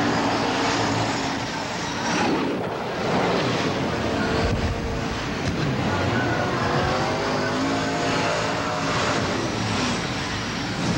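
Race car engines running hard on a dirt track, their pitch rising and falling as the cars pass, over a dense rushing noise.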